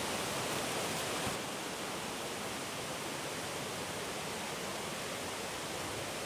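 Steady, even rushing noise with no distinct events, dropping slightly about a second and a half in.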